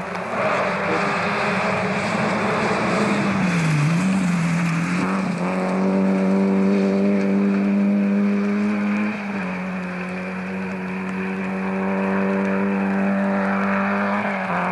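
Peugeot 205 GTI 1.9 rally car's four-cylinder engine running hard at high revs. Its pitch dips briefly about four seconds in, then holds steady.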